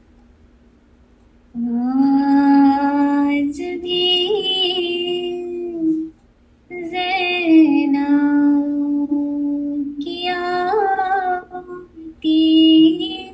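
A young woman reciting soz, an Urdu elegiac chant, unaccompanied, in long held melodic phrases that begin about a second and a half in, with short breaths between them. The teacher hears this voice as very soft and the words as stretched out too long.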